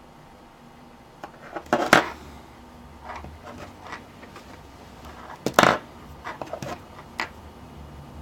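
Wire cutters snipping through insulated wire twice, with two sharp snaps about two seconds in and again about five and a half seconds in. Smaller clicks of handling come between and after.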